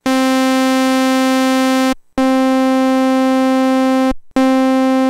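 Korg Prologue analog synthesizer oscillator holding one steady, buzzy note, rich in harmonics, in roughly two-second takes with brief gaps, all at matched loudness. The first take is the plain oscillator. The second has the filter drive at 50% with the oscillator volume at noon, and a third take starts about four seconds in.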